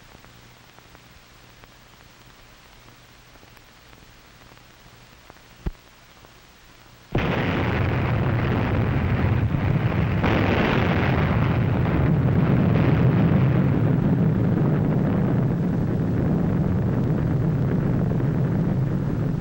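Faint film-soundtrack hiss with a single click, then about seven seconds in an atomic bomb explosion cuts in suddenly and carries on as a loud, sustained low rumble, swelling again about three seconds later.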